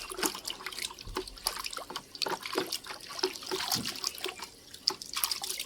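Water splashing, trickling and dripping in quick, irregular little bursts as a plastic action figure is washed by hand.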